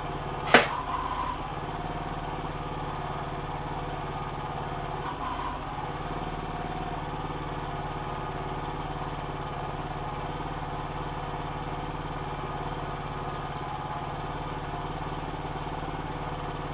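Small gasoline engine of a towable backhoe running steadily and driving its hydraulic pump, with a sharp knock about half a second in. The hydraulics are making a noise that the owner can't place: either the relief valve or too little fluid in the system.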